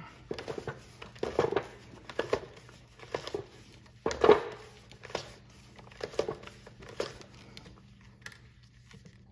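Bump-feed string trimmer head being twisted by hand to wind new line onto the spool: a series of short clicks and scrapes, about one a second, thinning out near the end.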